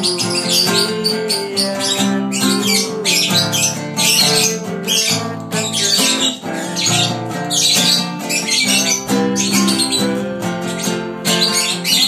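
Acoustic guitar strummed while a pet lovebird chirps and squawks along in shrill, irregular bursts.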